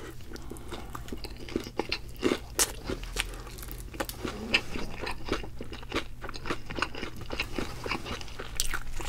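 Thick-battered BHC Potato King fried chicken crunching as it is bitten into and chewed, with many short, sharp crackles of the crust.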